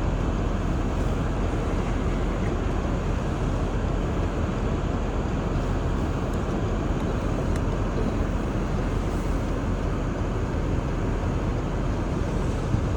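Steady road and engine noise heard inside a car's cabin while driving slowly on snowy roads.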